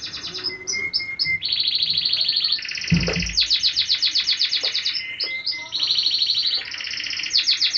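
Small birds chirping in rapid, high-pitched trills, one run after another with hardly a break. A single dull thump sounds about three seconds in.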